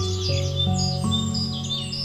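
Instrumental music with held notes that change pitch about every half second, layered with quick, high bird chirps and whistles.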